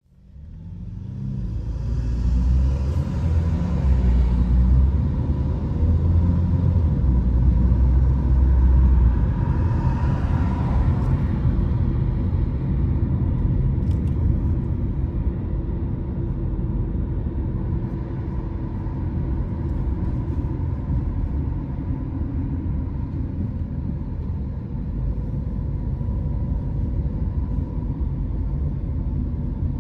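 Car driving on city roads: a steady low rumble of engine and tyre noise that fades in over the first couple of seconds and is heaviest for the first nine seconds or so.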